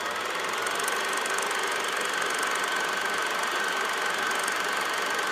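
Steady mechanical buzzing with a high, even whine running through it.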